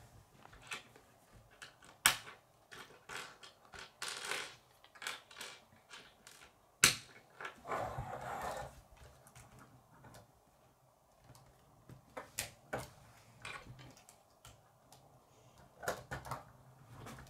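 Plastic K'nex rods and connectors clicking and snapping as pieces are pushed onto a model car, with scattered light clicks and scrapes. Two sharp, much louder snaps come about two and seven seconds in.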